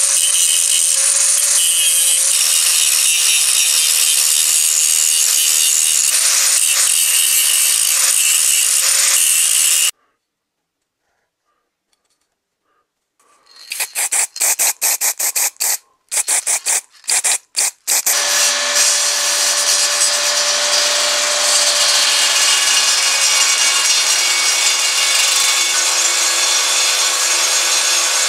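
An angle grinder running steadily against the rusty cast-iron body of an antique clothes iron. After a short silence come a dozen short hissing bursts of aerosol spray paint. Then a table saw runs steadily, cutting wood.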